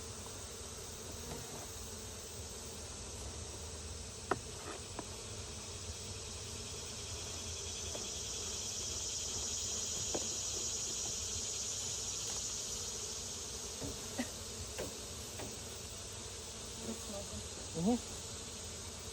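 Honeybees buzzing around an open hive, a steady hum, under a high insect drone that swells through the middle and fades again. A few sharp clicks and knocks, the loudest about four seconds in.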